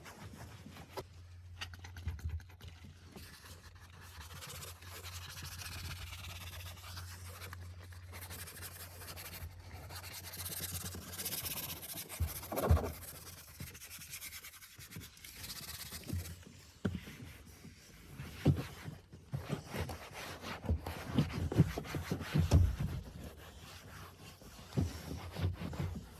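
Brushing and rubbing on car interior surfaces during detailing, with scattered knocks and clicks; a steady low hum runs through the first half and stops about halfway.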